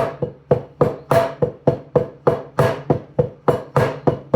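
Wooden taiko bachi (drumsticks) striking in an even stream of about three to four strokes a second, some strokes louder than others as accents, each with a short ring.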